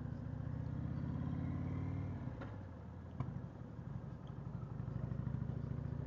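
V-twin motorcycle engine running under way. The engine note drops off about two and a half seconds in, then builds again toward the end.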